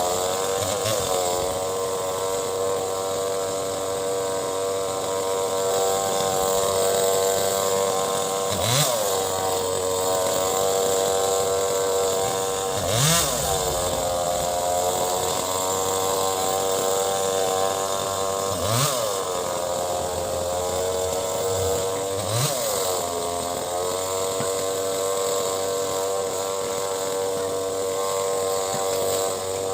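Two-stroke chainsaw running at high revs, its engine pitch dipping briefly and recovering four or five times as the throttle or the load changes.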